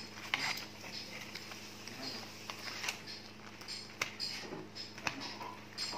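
White plastic forks and spoons picking and scraping at fried chicken in cardboard boxes, with a few sharp clicks and soft rustling of paper wrappers, over a low steady hum.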